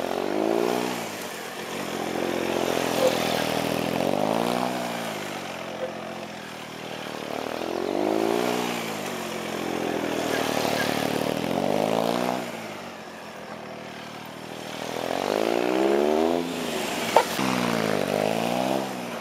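Triumph Speed Triple's three-cylinder engine revving up and dropping back again and again, five or six times, as the motorcycle accelerates and brakes between the cones of a tight gymkhana course. A single sharp click near the end.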